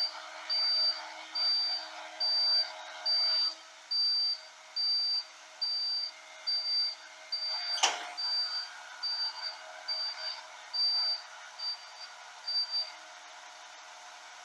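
An electronic warning beeper sounding about one and a half times a second, turning irregular and stopping near the end, over the steady hum of a truck engine driving the hydraulics of a Palfinger loader crane as it lifts a site container. A single sharp knock about eight seconds in.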